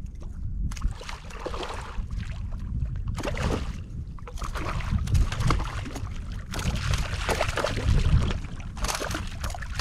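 Irregular bursts of water splashing and sloshing while a hooked redfish is played out on the line, over a low wind rumble on the microphone.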